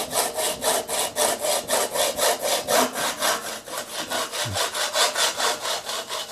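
Rod saw blade in a hacksaw frame cutting through a graphite golf driver shaft: a steady rasping back-and-forth, about five strokes a second.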